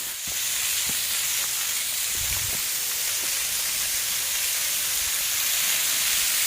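Small waterfall running with a light flow, a steady rushing hiss of falling water.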